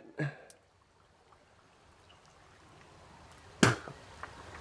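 Near silence, then a single sharp knock about three and a half seconds in, followed by a faint steady rush of flowing water.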